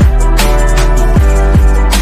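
Electronic background music with a heavy bass line and a steady beat of kick drums.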